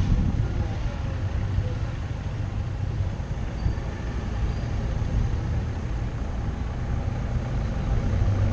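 Car driving on a city street: a low, steady rumble of engine and road noise.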